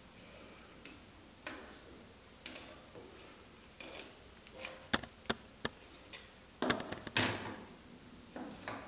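Handling noise of twigs being lashed together with wool yarn: faint scattered rustles, a quick run of sharp wooden clicks about halfway through, then a louder scraping rustle a little later.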